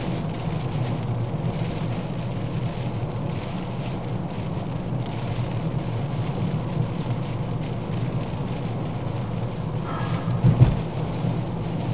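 Steady low road-and-engine drone inside a Ford Fiesta's cabin, driving in heavy rain with rain noise on the car. A short thump comes near the end.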